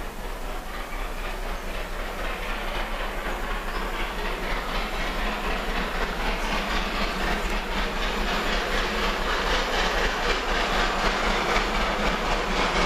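GWR Castle-class four-cylinder 4-6-0 steam locomotive 5029 Nunney Castle approaching flat out, its rapid exhaust beats and running noise growing steadily louder as it draws near.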